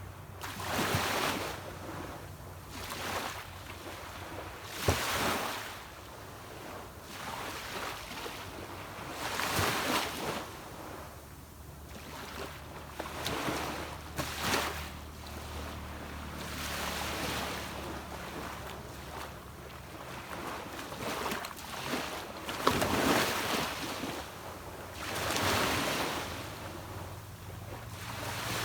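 Small sea waves breaking and washing up a beach, one swell every two to four seconds. Under them runs the steady low hum of a distant boat engine.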